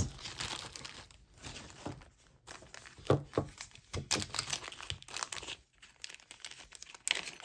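Small clear plastic zip-top bag crinkling irregularly as it is handled and pulled open, with a few sharp crackles.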